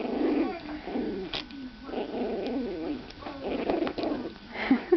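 Six-week-old pug puppy making a run of small whining and growling noises, with a sharp click about a second and a half in.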